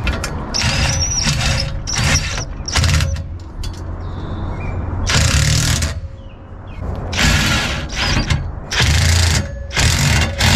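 DeWalt cordless driver with a socket extension, tightening bolts on Unistrut steel channel in a series of about eight short bursts, each under a second, separated by brief pauses.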